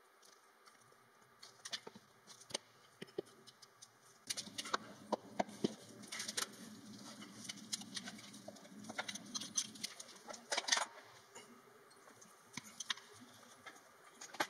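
Red oak test blocks being handled and set down on a workbench: scattered light clicks and knocks, busiest from about four to ten seconds in.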